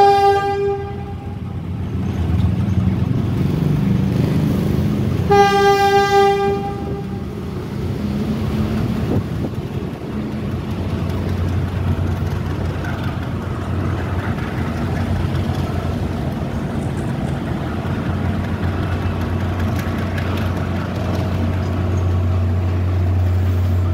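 Philippine National Railways diesel locomotive sounding its horn twice: a short single-note blast at the start and a longer one about five seconds in. Between and after the blasts comes the steady low rumble of the train passing along the tracks.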